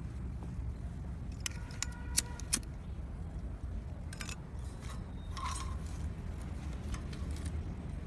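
Light metallic clicks and clinks, some with a brief ring, from the wires of a metal fan guard being handled: a quick run of them about one and a half to two and a half seconds in, and a few more scattered later. Under them runs a steady low rumble.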